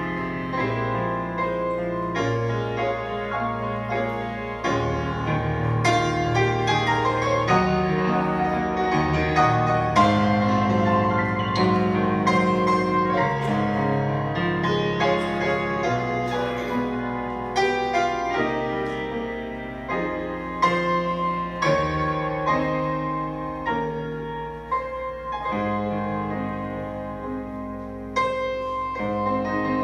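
Solo grand piano playing a hymn medley: full chords under a moving melody, without a break.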